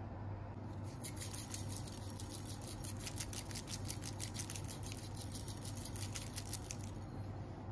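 Sesame seeds sprinkled onto honey-glazed phyllo pastry rolls and the platter, a rapid pattering of tiny ticks that starts about a second in and stops near the end, over a steady low hum.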